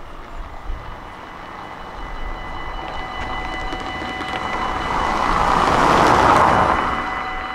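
A car passing close by on a brick road: a rush of tyre and engine noise that swells to a peak about six seconds in, then fades.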